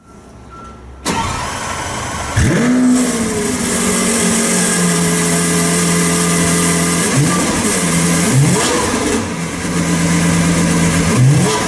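Lamborghini Aventador SV's 6.5-litre V12 starting up. The starter engages about a second in, and the engine fires with a sharp flare of revs about two seconds later, then settles to a steady idle. It is blipped with short revs a few times over the second half.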